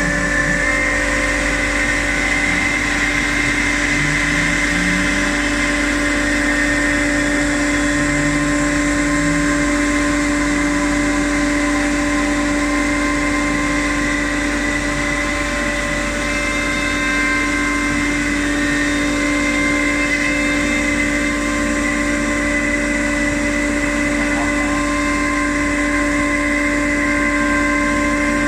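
Motorized machinery running steadily with a constant hum and whine, with short stepped changes of pitch in the first ten seconds.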